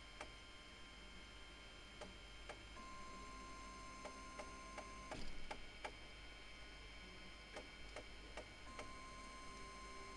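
Seven-colour 3D printer running a print: its stepper motors give steady tones that stop and start as moves change, with irregular light clicks and a brief louder rattle about five seconds in.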